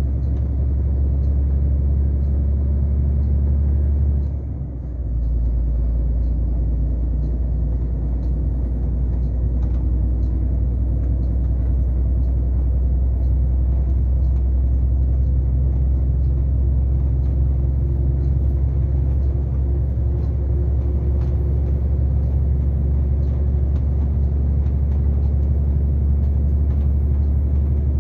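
Steady low drone of engine and road noise heard inside the cab of a moving vehicle at highway speed, dipping briefly about four seconds in.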